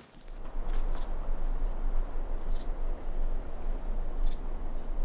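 Outdoor nature ambience: a steady, high-pitched chirring of crickets over a low wind rumble.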